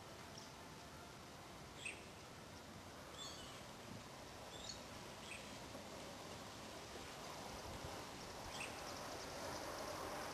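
Faint outdoor background noise with small birds chirping, a short chirp every second or two. A soft hiss builds up near the end.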